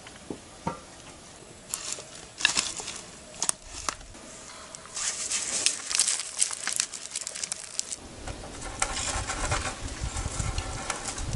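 Intermittent rustling and crackling with sharp clicks, growing busier about five seconds in, with a low rumble joining in near the end.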